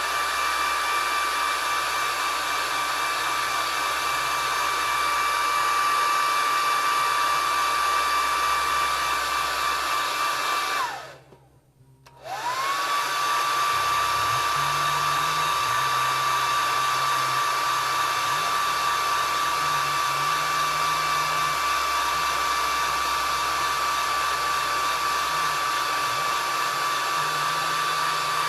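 Hair dryer blowing steadily with a high whine over its airflow. It is switched off about eleven seconds in and back on about a second later, the whine rising as the motor spins up again.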